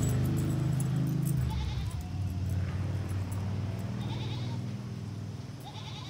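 Goats bleating a few short times over a low steady drone that slowly fades away.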